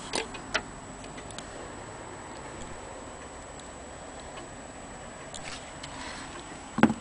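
Irregular sharp clicks and light knocks from handling inside a wooden longcase clock case, near its brass weight, with one loud knock near the end.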